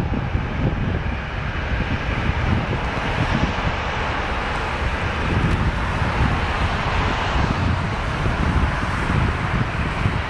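A twin-engine jet airliner's engines make a steady rush of jet noise as the aircraft rolls away down the runway. Wind buffets the microphone throughout.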